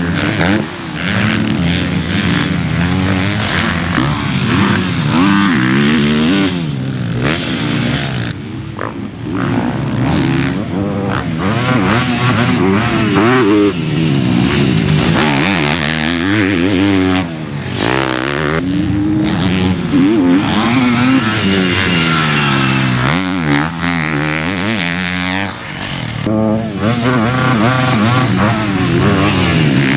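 Four-stroke motocross bikes ridden hard around a dirt track. The engines rev up and drop back over and over as the riders accelerate, shift and roll off, so the pitch keeps rising and falling, with short dips in loudness.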